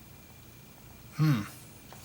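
Quiet room tone, then a brief vocal sound from a man a little past a second in.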